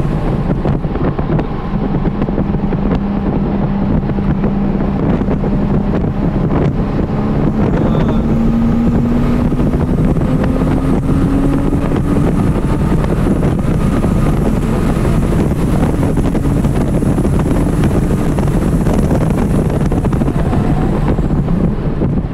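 2012 Porsche Cayman R's 3.4-litre flat-six, heard from inside the cabin, pulling hard in third gear with its note rising steadily toward about 6,000 rpm. Near the end it drops off under braking. Heavy wind and road noise run underneath.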